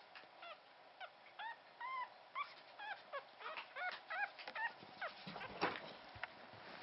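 Two-week-old Pomeranian puppy squeaking: a quick string of short, high squeaks that rise and fall, two or three a second. A brief, louder rustle comes about five and a half seconds in.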